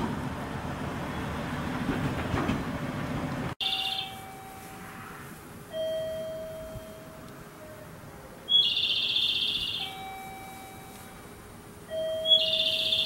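A diesel railcar runs at the platform for the first few seconds, then the sound cuts abruptly. What follows is a station's electronic guide sounds: artificial bird chirps, twice, and a slow two-note electronic chime from a high note to a lower one.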